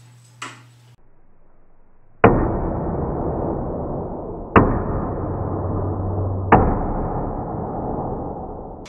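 Three heavy, booming hammer-like impacts about two seconds apart, each trailing off in a long, low rumble. They are much deeper and slower than live hammer taps, which marks them as a slowed-down or added effect for the hammer blows.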